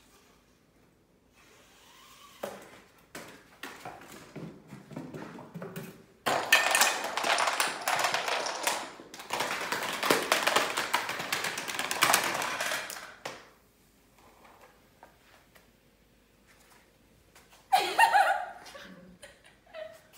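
Homemade Rube Goldberg machine of cardboard ramps running: scattered knocks and rolling clicks, then a long, loud clatter of CD cases and Jenga blocks toppling one after another like dominoes for about seven seconds. Near the end, a short excited cry from a person.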